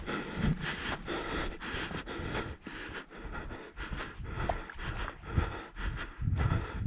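A hiker breathing hard and panting, with footsteps on the trail and gusts rumbling on the microphone.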